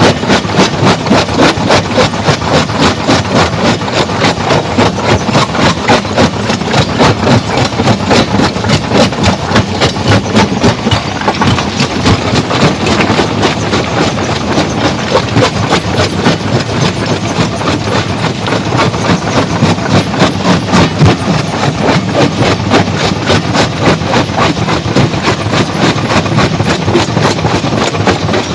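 Heavy stone-crushing machinery running with a rapid, even clatter of about four knocks a second.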